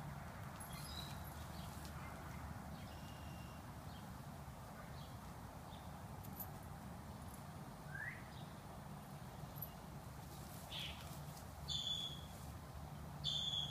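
Faint outdoor background: a steady hiss and a low hum, with a few scattered short chirps, one of them rising. Two louder short high calls come near the end.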